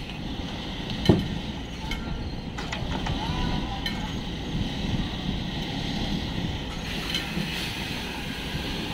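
Heavy truck rolling slowly over a ferry's steel loading ramp, its diesel engine running low under metallic creaks and clanks from the ramp. One sharp bang about a second in is the loudest sound.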